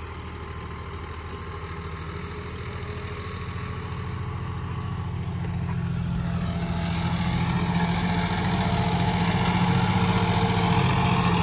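John Deere 5210's turbocharged three-cylinder diesel engine running steadily under load as it pulls two disc harrows in second gear of the C range. It grows steadily louder as it comes closer.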